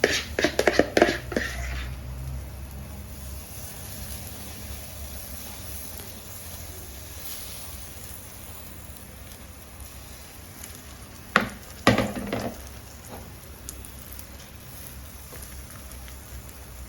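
Food sizzling steadily as it fries in a pan, with two short bursts of a metal utensil clattering against the pan: in the first couple of seconds and again about twelve seconds in.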